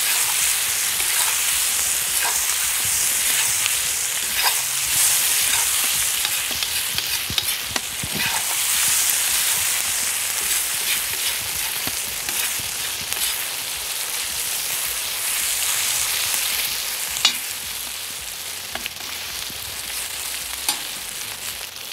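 Pork, onion, garlic and chili sizzling in hot oil in a cast-iron kazan, stirred with a metal spatula that scrapes and clicks against the pot now and then. The sizzle eases slightly toward the end.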